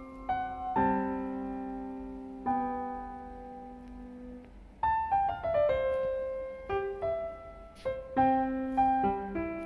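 Background piano music: slow chords that ring and fade, with a quick run of falling notes about five seconds in.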